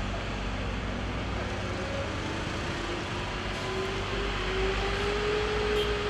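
Vehicle engines running steadily under a broad noisy rumble, with one engine's note slowly rising from about halfway through and then holding.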